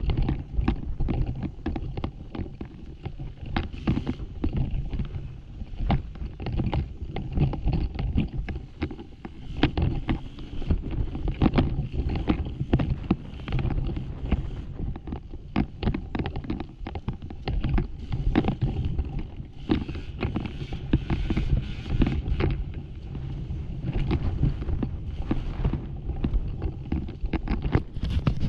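Off-road dirt bike engine running at varying throttle over a loose, rocky trail. Frequent sharp knocks and clatter of the bike over rocks run through it, with wind buffeting the microphone.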